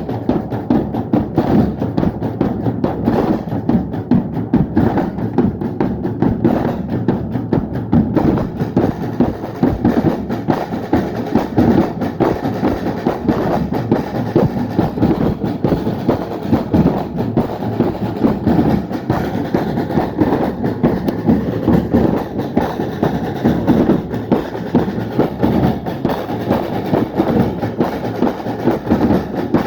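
A drum band playing together, many drums beating a fast, dense, continuous rhythm with heavy low drums.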